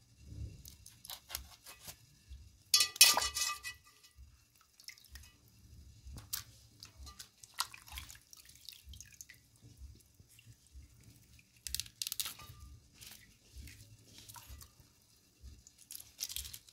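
Water dripping and splashing in a steel bowl as a soaked salt fish is cut with a knife and dipped, in short irregular splashes. A sharper clatter with a short ring about three seconds in is the loudest moment.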